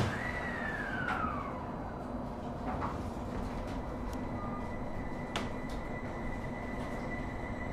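JR East E721 series electric train about to depart. A click, then a tone that falls over about a second and a half, a few lighter clicks, and from about four seconds in a steady high whine over a low steady hum.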